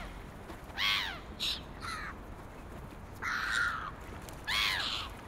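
Birds calling: about five short calls that each drop in pitch, with one longer call in the middle, over a faint steady hiss.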